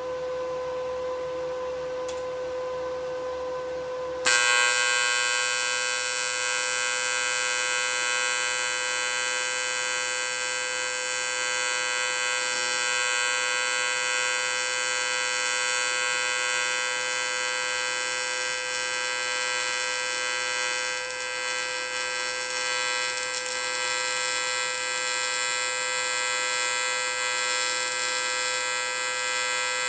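TIG welder humming with a steady tone; about four seconds in, an AC TIG arc strikes on aluminium and buzzes steadily, louder and with many overtones, as a bead is laid.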